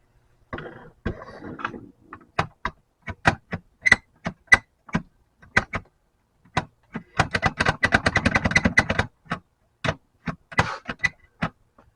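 Metal tools clicking, knocking and scraping against the lead-melting pot and casting gear, as separate sharp clicks with a fast rattling run of clicks about seven seconds in.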